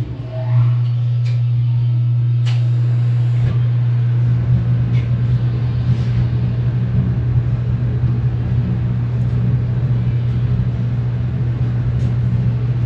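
Rotary phase converter switched on, spinning up within about half a second and then running with a loud, steady low hum. A rougher low rumble joins underneath about four seconds in.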